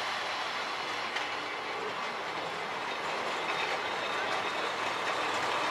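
Set of heritage CPH railmotors running past close by: a steady running noise of the cars and their wheels on the track, growing slightly louder near the end as the cars go by.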